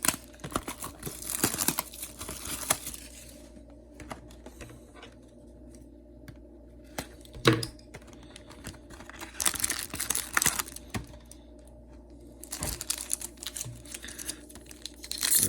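Foil trading-card booster pack wrappers crinkling and tearing open, in several bursts with quieter handling between.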